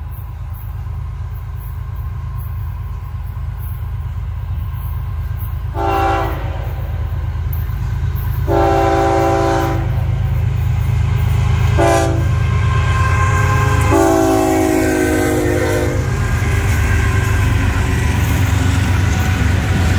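Florida East Coast Railway freight train approaching with its diesel locomotives rumbling, growing louder as it nears. The lead locomotive's air horn sounds the grade-crossing signal about six seconds in: two long blasts, a short one, and a final longer one. Near the end the locomotives pass close by.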